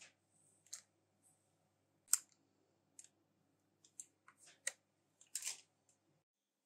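Scattered light clicks, taps and scrapes of a silicone spatula against a parchment-paper-lined metal cake pan as the pan and batter are handled, the loudest taps about two seconds in and again just past five seconds.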